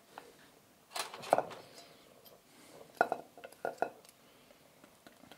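A few sharp clinks and knocks of a utensil against a stainless-steel stand-mixer bowl while flour is added to the nut dough, about a second in and again around three seconds in; the mixer itself is not running.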